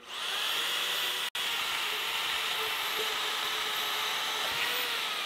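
A Vevor portable band saw, used handheld, running with a steady motor whine as its blade cuts through metal pipe. The sound drops out for an instant just over a second in.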